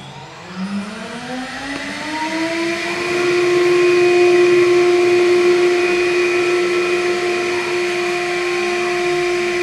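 Spindle motor of a MillStep PAX6050V2 CNC milling machine spinning up: a rising whine that climbs for about three seconds, then holds a steady pitch.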